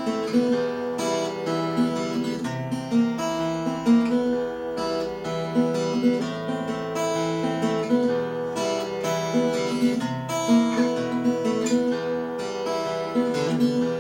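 Acoustic guitar playing a blues instrumental break, strummed and picked chords.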